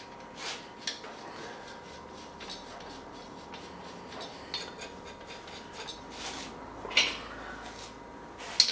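Small metal clicks and rubbing as cylinder head nuts are fitted and turned onto their studs by hand, with a couple of sharper clicks near the end.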